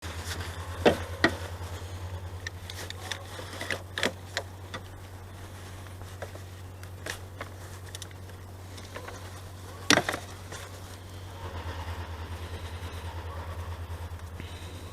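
Sharp clicks and knocks of tools and parts being handled, loudest twice about a second in and once near ten seconds, over a steady low pulsing hum.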